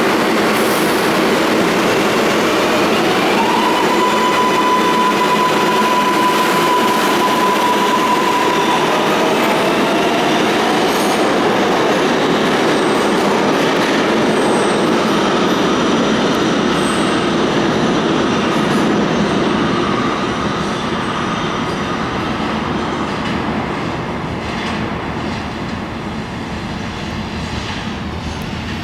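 R142A subway train pulling out of the station: its electric traction motors give a whine that rises in pitch a few seconds in and holds steady, then a second rising tone, over wheel and rail noise with some squeal. The rumble fades slowly in the last third as the train moves away.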